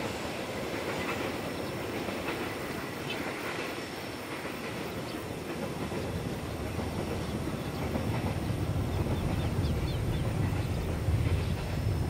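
Coal train's open-top freight wagons rolling along the rails, a steady clatter of wheels over the track as the end of the long train moves away.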